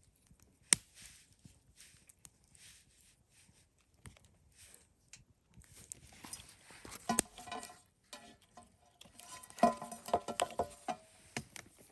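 Camp cookware being handled: scattered light taps and clicks, then two bursts of metal clinking and clattering with short ringing notes, about seven seconds in and again near ten seconds.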